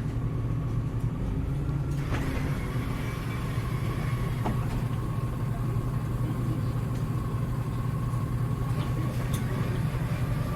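Heuliez GX317 LPG city bus heard from on board, its engine running at a steady, unchanging note, with a thin steady whine over it and a few faint clicks.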